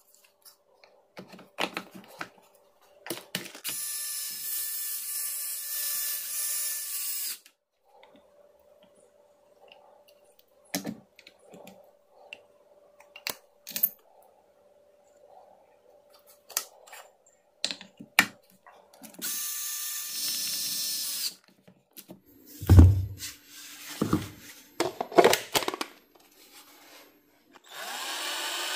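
Cordless impact wrench, powered by a rebuilt 21700 lithium-ion pack, running in bursts: about four seconds early on, two seconds later, and starting again near the end. Clicks and handling knocks fall between the runs, with one loud thump about three-quarters of the way in.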